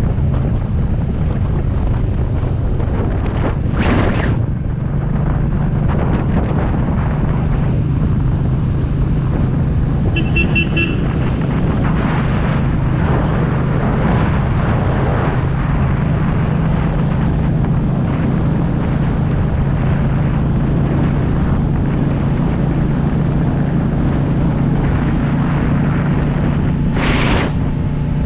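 Royal Enfield Meteor 350's single-cylinder engine running at road speed under steady wind rush on the microphone, its note stepping up about five seconds in and again near the end. Two brief whooshes come about four seconds in and near the end, and a short high tone about ten seconds in.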